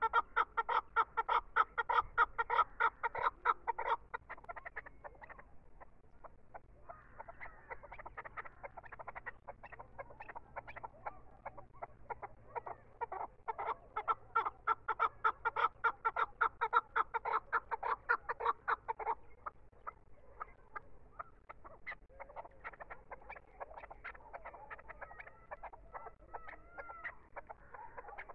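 Caged chukar partridge calling: long runs of rapid, evenly repeated clucking notes, loudest at the start and again in the middle, with softer, scattered calls between and near the end.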